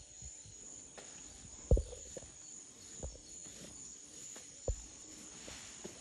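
Insects, crickets among them, keeping up a steady high-pitched drone, with a few low thumps; the loudest comes just under two seconds in, and two more about three and four and a half seconds in.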